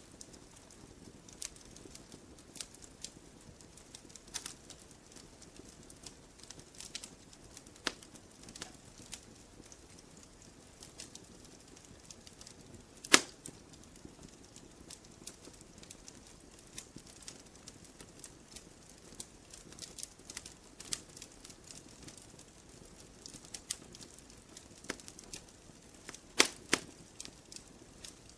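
Campfire logs burning and crackling: irregular sharp snaps and pops over a faint steady hiss, with one louder snap about halfway through and a quick run of several snaps near the end.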